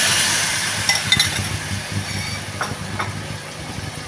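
Marinated chicken breast sizzling in hot oil in a pan with fried garlic and onion, the sizzle slowly easing off after the meat goes in. A few clinks of a utensil against the pan.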